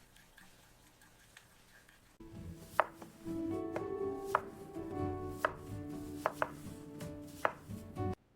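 Knife chopping food on a cutting board: irregular sharp strikes with a ringing tone under them, starting about two seconds in and cutting off suddenly near the end.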